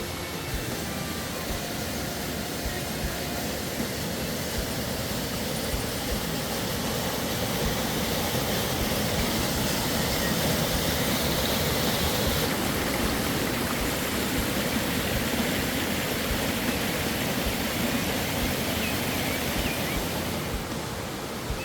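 Waterfall rushing: a steady, dense hiss of falling water, louder through the middle and easing back near the end.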